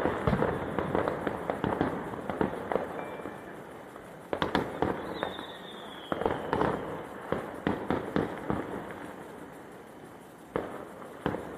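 Fireworks display: volleys of bangs and crackling shells that thin out, then start again twice, with a falling whistle about five seconds in and single bangs near the end.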